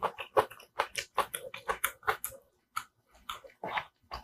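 Close-miked eating sounds: quick wet clicks of chewing on kimchi stew and rice, with a wooden spoon mixing in a wooden bowl. The clicks come thick for about two seconds, then thin out.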